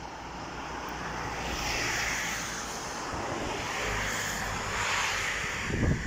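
Rushing outdoor background noise that swells and fades about three times, with a few low rumbling bumps near the end.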